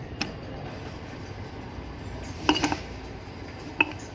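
Metal clinks of tools and parts against the opened Toyota Corolla front-wheel-drive gearbox, over a steady low background noise. There is one clink early on, a quick run of several about two and a half seconds in, and another sharp one near the end.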